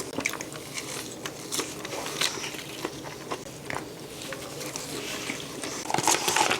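Close-up biting and chewing of french fries: many small crunches and wet mouth clicks, with a louder noisy burst about six seconds in.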